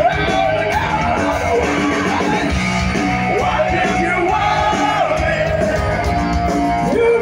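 Live hard rock band playing: a male lead singer holding long, wavering notes over distorted electric guitars, bass and drums, heard from among the audience.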